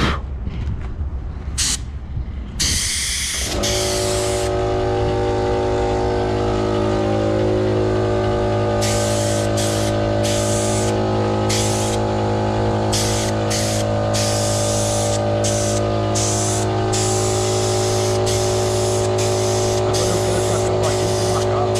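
Paint spraying in repeated short hissing bursts onto engine sheet metal. A steady machine hum starts about three and a half seconds in and keeps running under the spraying.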